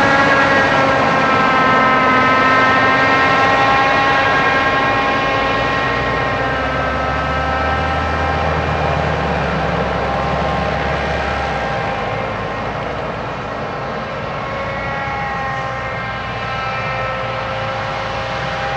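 John Deere 7800 self-propelled forage harvester working in maize, a steady high-pitched whine from its cutterhead and blower over the engine noise. A deeper engine rumble joins for a few seconds in the middle.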